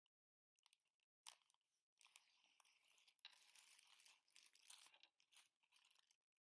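Very faint crinkling and rustling of tissue paper and tinsel as hands handle a tissue-wrapped paper tube, with a few soft ticks.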